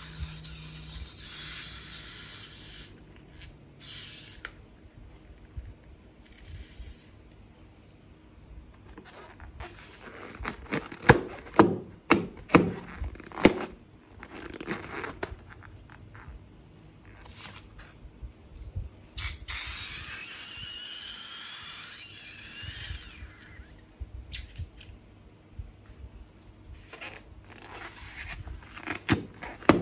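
Slime-making handling sounds: plastic piping bags and balloons crinkling and tearing, scraping, and slime being squeezed out. There are stretches of hiss at the start and again past the middle, and a cluster of sharp taps about a third of the way in.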